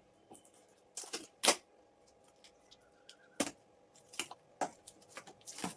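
Packaging of an HDMI cable being handled and opened during unboxing: a series of irregular sharp clicks and rustles.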